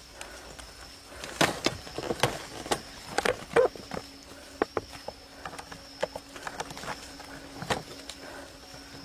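Irregular sharp cracks and snaps, as of something moving over dry leaves and twigs, over a steady high insect drone. A low steady hum comes in about four seconds in.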